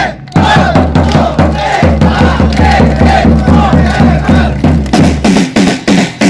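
Loud music with a heavy, regular bass beat and shouted, chant-like vocals over it.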